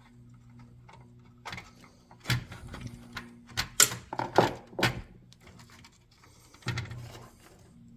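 Screws being driven by hand into a garage door opener's replacement control board: irregular clicks and clatters of the screwdriver, screws and plastic housing being handled, over a faint steady low hum.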